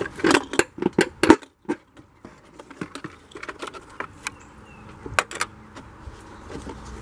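Plastic knocking and clattering as a Camaro's factory airbox is forced loose and pulled out of the engine bay: a quick run of sharp knocks in the first two seconds, then scattered clicks with two louder knocks about five seconds in.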